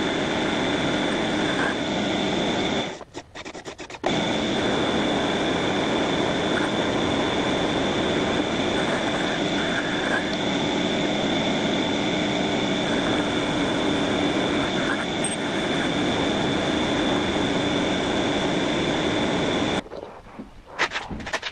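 Metal lathe running and turning a round metal workpiece in the chuck: a steady machining noise with a constant high whine. It drops out for about a second some three seconds in and stops just before the end, leaving a few light clicks of the metal part being handled.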